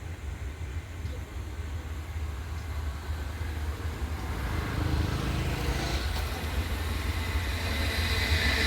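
Train hauled by a WAP-7 electric locomotive approaching, a low rumble growing steadily louder.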